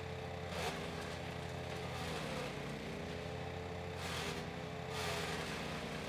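Range Road RR400 wood chipper's gasoline engine running steadily as leafy branches are fed into the hopper. A brief rush of chipping noise comes about half a second in and again around four to five seconds in, with the engine note sagging slightly under the load.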